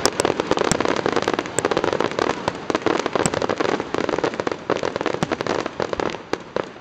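Aerial fireworks crackling: a dense, rapid run of pops with a few louder bangs among them, thinning out and dying away near the end.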